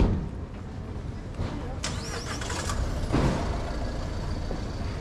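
City street ambience: a steady low rumble of traffic, with a sharp knock right at the start and a short high squeak about two seconds in.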